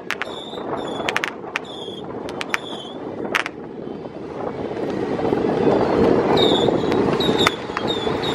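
Scattered firecracker bangs, a few a second, over a steady rumbling background that swells midway, with short high-pitched ringing tones in between.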